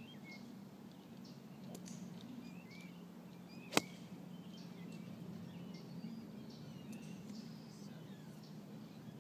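A golf iron strikes a ball on a full swing, one sharp click about four seconds in.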